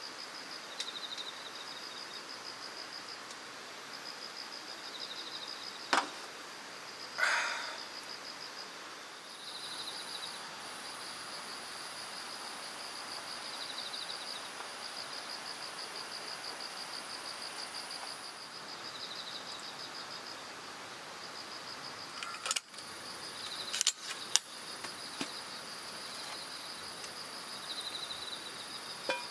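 Insects chirping in a steady, fast-pulsed high trill, with a second insect trilling in short bursts every few seconds. A few sharp knocks cut through, one about six seconds in and a cluster of three a little past the three-quarter mark.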